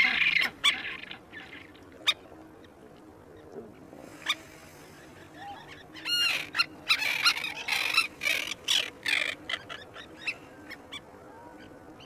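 Terns calling: a quick run of harsh, rasping calls from about six seconds in to past nine seconds, after a few single sharp calls earlier. A brief scratchy sound comes at the very start.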